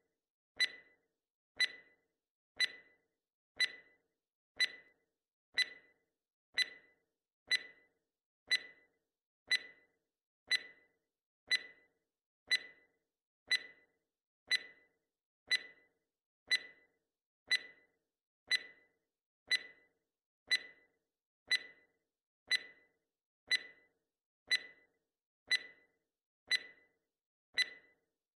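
Quiz countdown timer sound effect ticking once a second: a sharp, evenly spaced tick, each with a brief ring.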